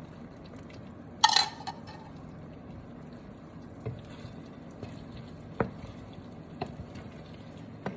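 A pan of chicken cutlets simmering in a lemon-juice sauce, giving a low steady bubbling. About a second in comes a loud sharp clank with a short ring, followed by a few light taps.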